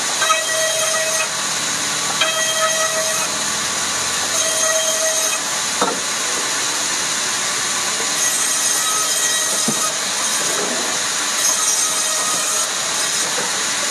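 Woodworking machinery running steadily with a loud hiss. A short ringing tone comes in three times in the first few seconds, and there is a single sharp knock about six seconds in.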